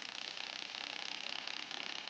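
Ratchet wrench clicking rapidly and continuously as bolts are run in while the new shock absorber is refitted.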